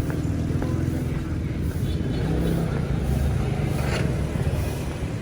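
A motor vehicle running, heard as a steady low rumble of engine and road noise.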